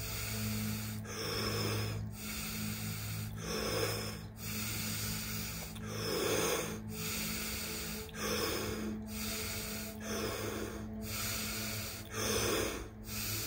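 Wim Hof method power breathing: deep breaths drawn in and let out through the mouth, one after another, about one every two seconds.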